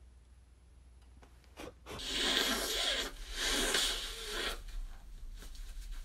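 A person blowing their nose into a paper tissue: two long, loud blows starting about two seconds in, then fainter rubbing of the tissue.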